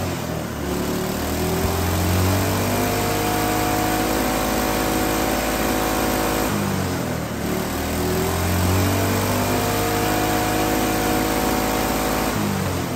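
Small single-cylinder four-stroke kart engine running on diesel ignited by a trickle of hydrogen through its spark plug, spinning the rear wheel. Its revs sag right at the start and climb back over a couple of seconds, sag and recover again around the middle, and drop once more near the end.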